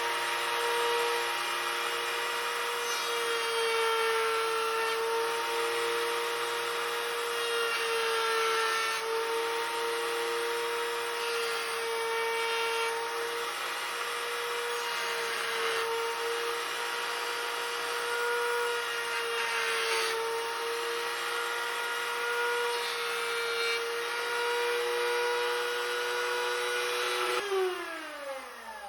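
Rocky 30 laminate trimmer, mounted under a router table, running at full speed with a steady whine while a small chamfering bit routes the edge of a wooden box leg. Near the end it is switched off and the pitch falls as the motor spins down.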